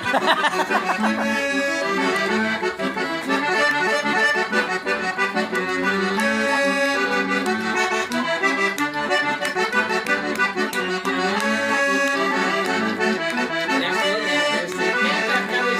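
Accordion (sanfona) playing traditional music, a steady stream of quick notes and chords.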